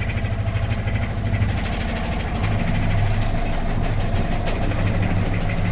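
Washing machine running, its motor giving a steady low hum with a fast, even rattle and a few sharp clicks.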